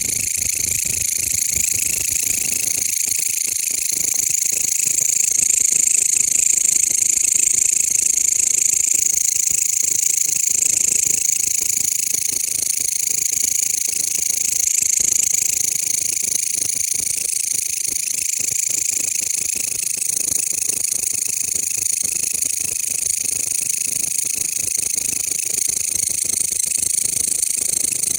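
Mecopoda elongata bush cricket calling: a loud, unbroken, high-pitched rasping buzz that holds steady throughout.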